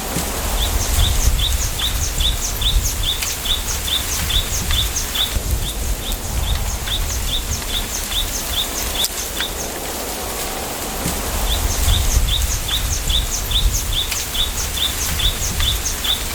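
A bird repeating one short, high chirp over and over, about two to three a second, in three long runs with brief pauses between. Underneath is a steady low rumble and an even hiss of wind through a bamboo grove.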